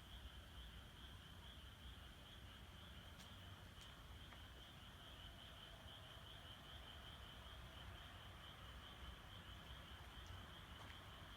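Faint chorus of frogs calling: a steady, high, finely pulsing trill that goes on unbroken.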